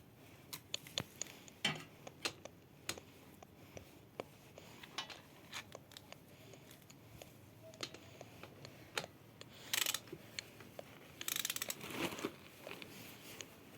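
Oil drain bolt being screwed back into a pit bike's engine: scattered small metallic clicks and taps from the bolt and tool, with a few longer scraping rustles about ten and twelve seconds in.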